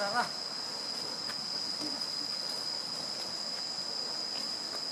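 Steady, high-pitched drone of an insect chorus, one unbroken tone that holds level throughout, with a faint voice briefly at the start.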